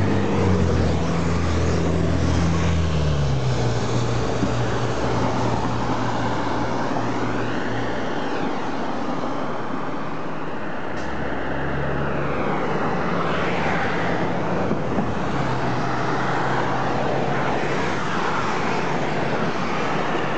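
Street traffic noise: motor vehicles running and passing, a steady road hiss with low engine hum that rises and fades as vehicles go by.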